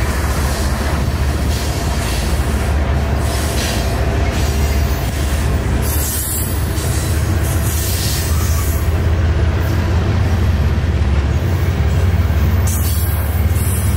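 Covered hopper cars of a freight train rolling past: a steady, heavy rumble of steel wheels on the rails.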